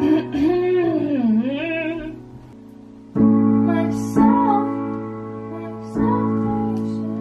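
Digital piano playing held chords, a new chord struck about four times, with a woman singing softly over it: a sung line dipping and rising in the first two seconds, and a few short notes later.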